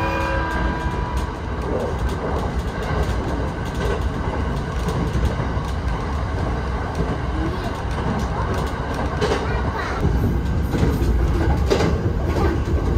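Train running on the rails: a steady low rumble with scattered clacks, getting a little louder near the end.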